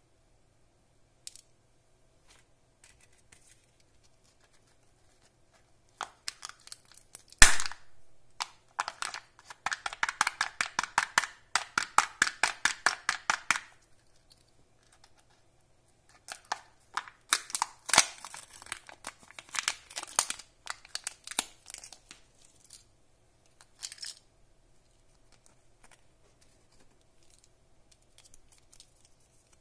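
Kinder Joy egg packaging handled and opened: a sharp click, then several seconds of fast crackling as the foil seal is peeled off the plastic egg half, and later irregular crinkling and tearing of the toy's plastic wrapper.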